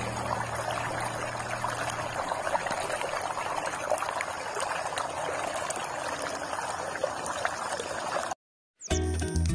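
Muddy water rushing and pouring through a narrow channel cut in a mud bank, a steady splashing flow. It cuts off suddenly about eight seconds in, and background music starts near the end.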